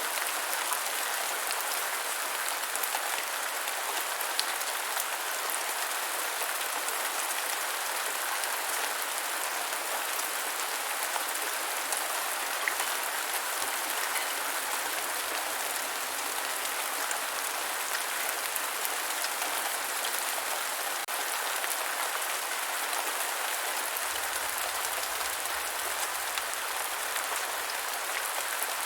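Steady rain falling on the ground: a continuous hiss made up of many small drop ticks.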